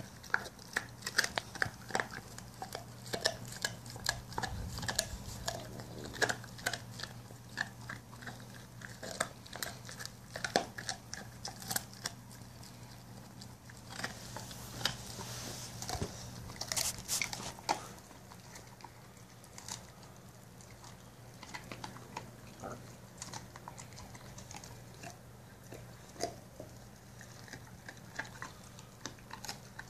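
Pit bull chewing on a lamb bone: irregular cracks, crunches and scrapes of teeth on bone, coming thick and fast for the first half and more sparsely later.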